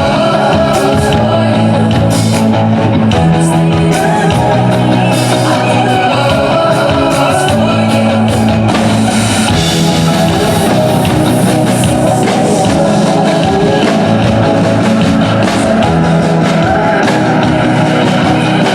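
Live band playing a loud pop-rock song through the stage PA during a sound check: a steady beat, held bass notes under guitar, and a voice singing.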